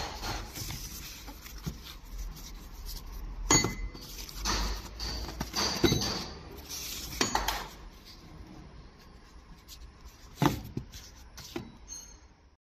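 Packaging film rustling and crinkling as wrapped packs are handled, with several sharp clacks at irregular intervals.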